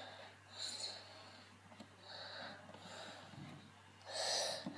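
Quiet, soft breathing close to the microphone: about four short breaths roughly a second apart.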